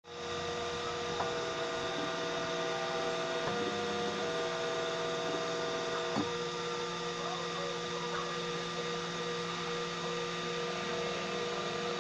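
3D printer running: a steady machine hum with whining tones that step to new pitches every second or few as its stepper motors move, and a brief click about six seconds in.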